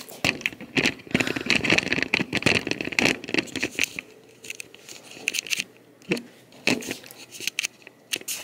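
Handling noise from a hand-held camera moved about close to the body: dense rustling, scraping and clicking for the first few seconds, then scattered clicks and knocks.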